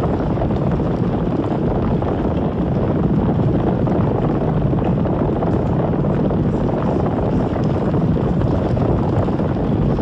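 Biollante monster sound effect: a steady, unbroken rumbling noise with no pitch or call in it.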